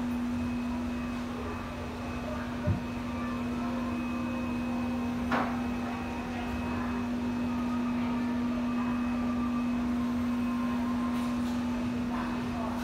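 A steady low-pitched hum over room noise, with a single soft thump near three seconds in and a brief click about five seconds in.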